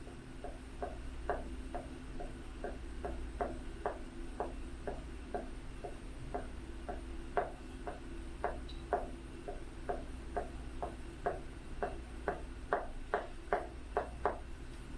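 A marker tip tapping on paper, dabbing dots one after another at about three taps a second.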